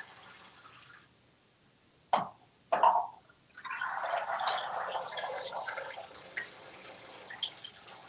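Water showering in thin streams from a container with holes onto a plastic tub for a couple of seconds, starting about three and a half seconds in, then dripping. Two short loud sounds come just before it, about two seconds in.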